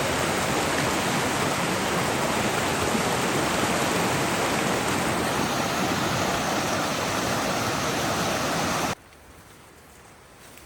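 Rushing river water, a steady loud rush that cuts off abruptly about nine seconds in.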